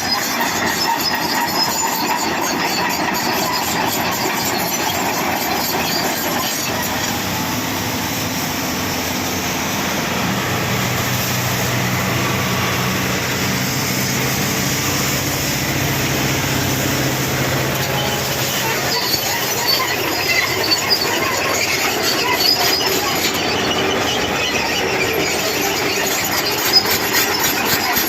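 Hitachi crawler excavator travelling on its steel tracks, the tracks squealing and grinding over the engine's steady run. A few sharp clanks come near the end.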